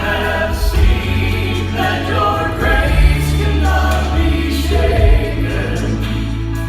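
A vocal quartet singing a song in harmony, with held low bass notes underneath.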